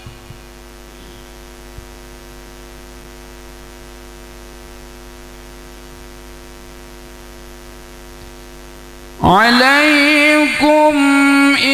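Steady electrical mains hum from the microphone's sound system during a pause in Quran recitation. About nine seconds in, a man's voice comes back in loud, melodic Quranic recitation (tilawah) through the microphone.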